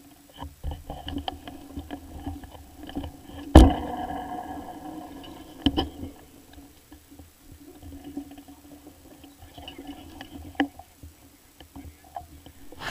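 Handling noise on an action camera's housing: rubbing, thumps and clicks, with one loud sharp knock about three and a half seconds in and smaller knocks later, over a faint steady hum.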